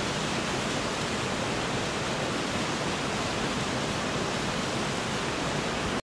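Steady rush of water from Beaver Brook Falls, a waterfall on a small brook.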